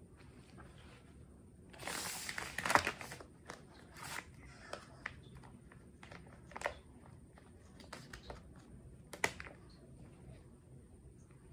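Crinkling and rustling of a disposable diaper and a packet of wet wipes during a diaper change, loudest in a burst about two seconds in that lasts about a second, then shorter rustles and a few sharp clicks.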